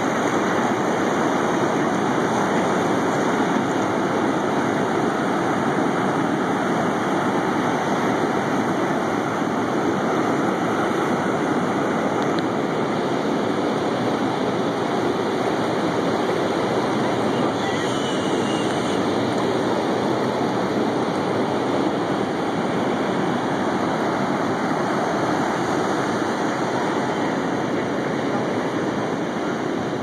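Ocean surf breaking and washing over a rocky tidepool shelf, a steady, unbroken rush of water.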